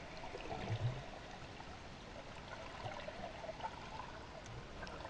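Faint, steady trickling of water, with a short low sound about a second in.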